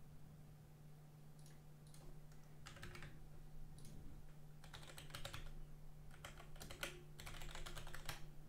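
Typing on a computer keyboard in quick bursts, the heaviest run of keystrokes in the second half, after a few single clicks in the first few seconds. A low steady hum runs underneath.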